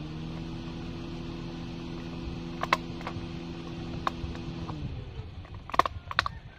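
A small handheld stapler snapping twice, sharp and close, near the end as it staples a plastic cup lid onto the cup, with a few lighter plastic clicks before. Under them runs a steady low hum that fades out about five seconds in.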